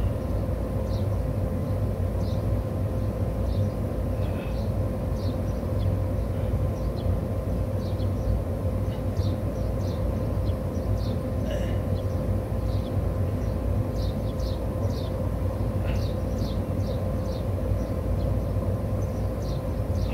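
Steady low outdoor rumble with a constant hum, and many short, high bird chirps scattered throughout.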